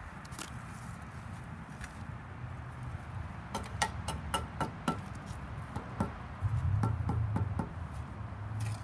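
Steel trowel tapping and scraping on brick and mortar as a half brick is set into its mortar bed: a scatter of light taps and clicks, some with a faint ring, thickest about halfway through.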